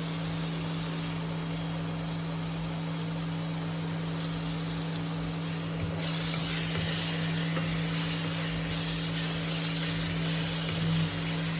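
Chopped onions sizzling in hot oil in a pan, over the steady hum of an induction cooktop; the sizzle grows louder about halfway through.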